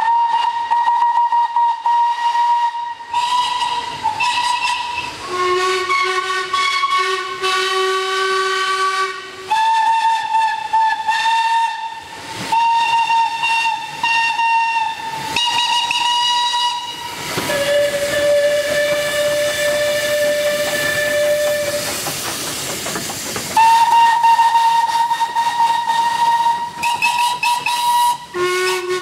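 Several steam locomotives' whistles blown in long blasts one after another, at different pitches: a high whistle, a lower one and a deep one, sometimes two sounding together, over hissing steam.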